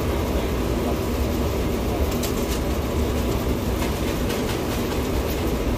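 Steady low rumble of a moving vehicle, with a few light clicks and rattles.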